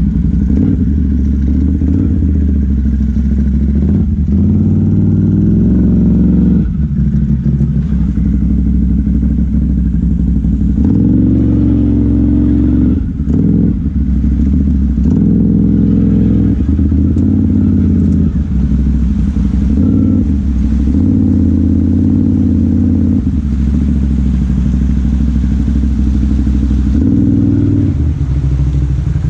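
Off-road vehicle engine running under load while riding. Its pitch steps up and down every few seconds as the throttle changes, with brief dips about a third of the way in and near the middle.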